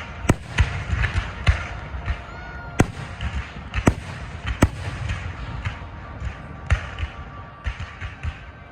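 Fireworks display going off: an irregular run of sharp bangs and pops, with crackling between them.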